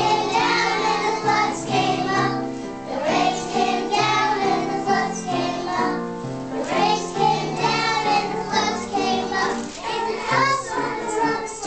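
A group of young children singing a song together in unison, over steady instrumental accompaniment.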